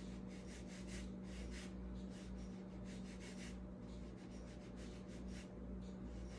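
Paintbrush rubbing and swishing on watercolor paper in a run of short, irregular strokes, a few a second, as the paint is worked thinner. A steady low hum sits underneath.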